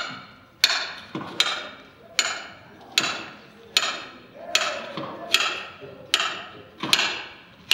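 Evenly spaced sharp knocks, about one every 0.8 seconds, each with a short ringing tail, from a documentary soundtrack played over a hall's loudspeakers.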